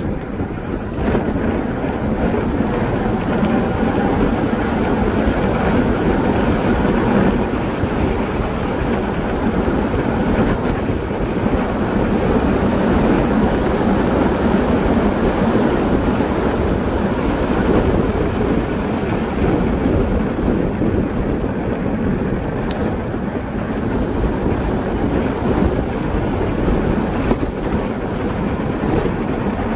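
Wind rushing over the microphone of a camera riding on a moving e-bike, with tyre noise from the asphalt underneath: a loud, steady rush that swells as the bike picks up speed right at the start.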